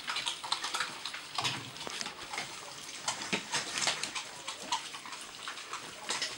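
Greyhound puppies chewing and gnawing pieces of raw meat: an irregular run of wet smacks and quick clicks.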